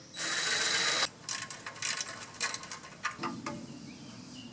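About a second of steady hiss, then scattered clicks and knocks of tools and metal parts as a small engine's fuel tank is taken off. Crickets chirp faintly near the end.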